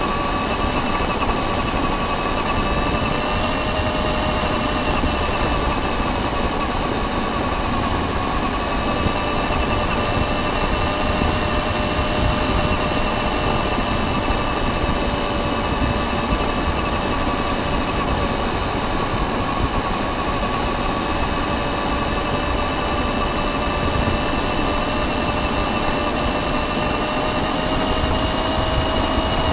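Radio-controlled car's motor and drivetrain running with a steady whine made of several pitches that drift slightly as the speed changes. It is heard from the car's onboard camera over a continuous rumble of tyres on gravel and wind.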